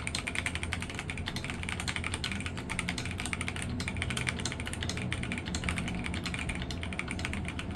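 Rapid, continuous typing on a mechanical keyboard with muffled switches, a dense run of soft clacks as a demonstration of the switch sound.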